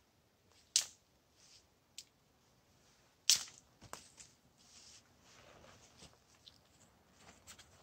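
A backpack being taken off: a few sharp clicks as its strap buckles are undone, the loudest a little over three seconds in, then fabric rustling as the pack is swung off, with steps in dry fallen leaves.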